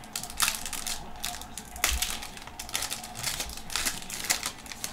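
Foil trading card pack wrappers crinkling and tearing as the packs are slit open and pulled apart, a run of irregular crackles and rustles.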